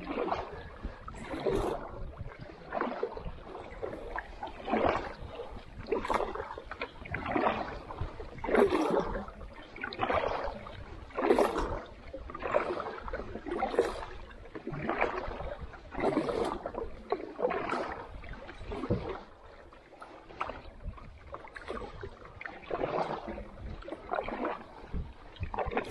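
Canoe paddling: the paddle dips and pulls through the water beside an Old Town Pack Canoe, a splash and swish about every second and a quarter in an even rhythm. The strokes ease off for a few seconds about two-thirds of the way through, then pick up again.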